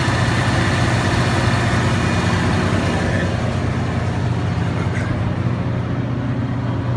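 Engine of an M35-series 2½-ton military truck running at a steady fast idle. A higher hiss fades out about halfway through.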